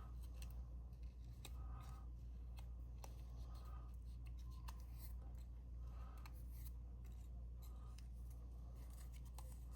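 Cardstock pop-up pieces being handled and adjusted by hand: faint scattered clicks and short paper rustles over a steady low hum.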